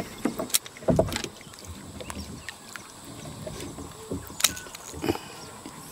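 A hooked fish splashing at the water's surface beside a small boat, with a louder splash about a second in, plus scattered sharp clicks and knocks.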